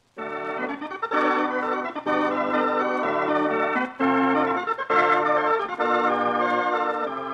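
Organ music bridge: a run of sustained chords, starting suddenly and changing about once a second, easing off near the end. It is the act-break cue that leads from the commercial into the next act of a radio drama.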